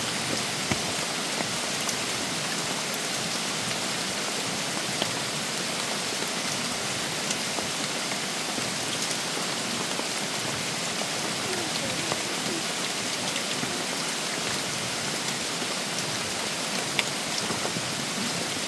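Steady rain falling on the forest foliage, an even hiss with a few sharper ticks of drops here and there.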